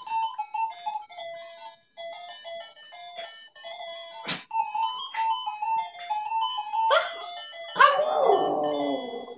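A simple chiming electronic melody plays note by note, with a few sharp clicks along the way. Near the end a small dog starts howling along to it, a loud drawn-out howl that slides down in pitch.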